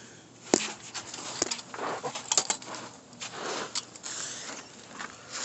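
Handling noise: irregular sharp clicks, light rattles and rustling as a car's fuel pump module with its wiring is moved about, with one sharp click about half a second in.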